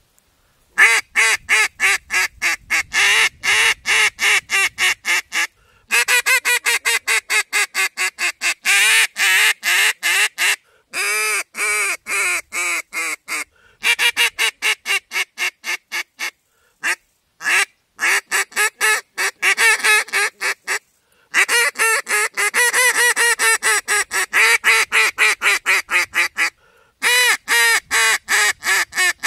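Hobo Prime duck call blown by mouth, giving fast runs of short duck quacks, several notes a second, broken by brief pauses between the runs.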